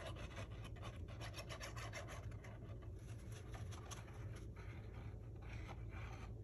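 Faint, scratchy rubbing of a liquid glue bottle's tip and fingers against cardstock as glue is run along a box tab, made of many small irregular ticks, over a steady low hum.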